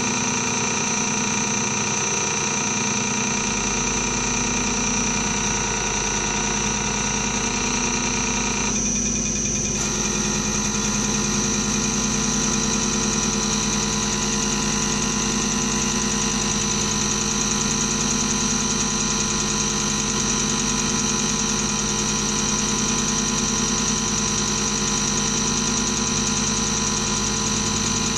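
Common rail diesel test bench running: its drive motor turning the high-pressure fuel pump with a steady, many-toned machine whine and hum. A deeper hum joins about three seconds in, and the middle tones thin briefly around nine seconds.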